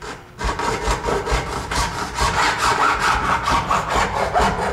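Hacksaw cutting a notch down through the rim of a plastic 5-gallon pail, in rapid, even back-and-forth strokes that start about half a second in.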